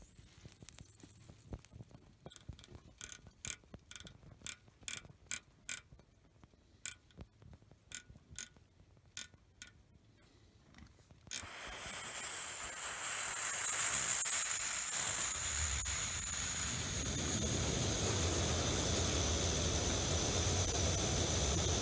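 A run of sharp mechanical clicks, two or three a second, then, about halfway through, a white gas camp stove's burner catching after priming and settling into a steady roar that grows louder over a few seconds as the flame goes blue.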